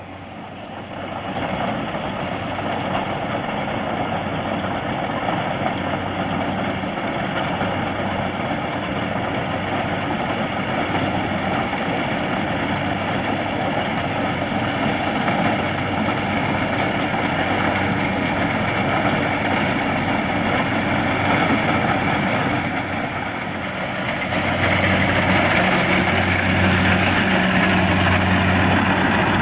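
Kubota DC-70 Plus rice combine harvester running steadily: diesel engine hum mixed with the noise of the threshing machinery. It grows louder about 24 seconds in.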